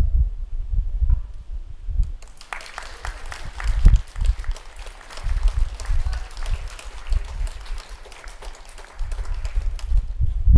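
Audience applauding, the clapping starting about two seconds in and dying away near the end. Wind buffets the microphone in low gusty rumbles throughout.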